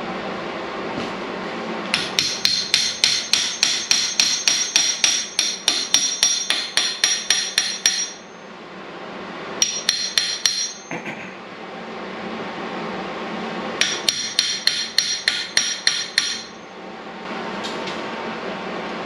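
Hammer tapping on steel square tubing and bracket, rapid ringing metal-on-metal strikes about four a second, in a long run, a brief few, then another run, setting the part in position for tack welding.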